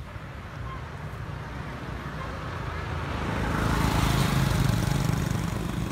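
A motor vehicle passing close by on the road, its engine and tyre noise growing louder, peaking about four seconds in, then fading.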